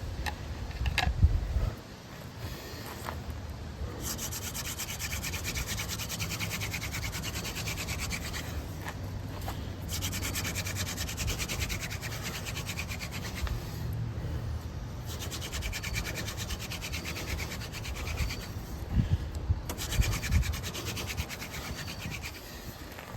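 Yucca hand-drill spindle spun between the palms against a crepe myrtle fireboard: a steady dry wooden rubbing and grinding made of fine rapid strokes, the friction that builds up an ember. It breaks off briefly a couple of times, and there are a few low thumps before the drilling starts.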